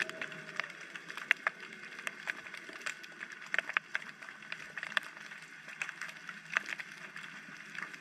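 Underwater ambience recorded through a camera housing: irregular sharp clicks and snaps, several a second, over a steady hiss.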